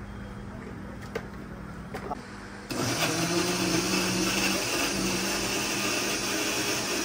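A few faint clinks, then about three seconds in a loud, steady machine hum cuts in suddenly and keeps running, like a small electric motor.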